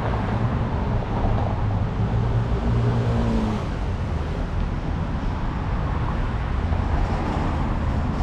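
City street traffic: motor vehicles running and passing, with a steady low engine hum.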